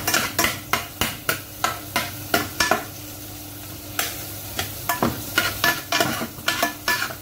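Garlic sizzling in a little hot oil in a pan while a utensil stirs it, scraping and clicking against the pan about two or three times a second. The stirring pauses for about a second a little before halfway, leaving only the sizzle.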